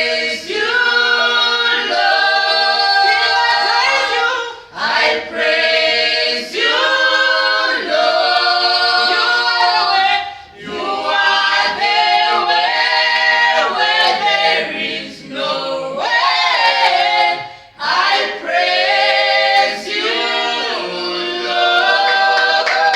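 A church praise team singing a gospel praise song in harmony, unaccompanied, in long phrases with brief breaks between them.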